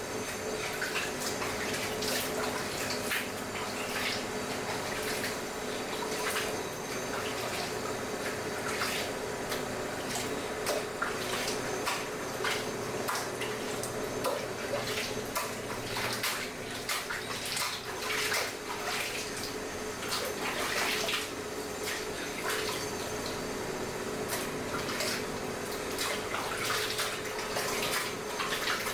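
Construction-site noise: a steady rushing machine hum with many irregular clicks, scrapes and clatters throughout.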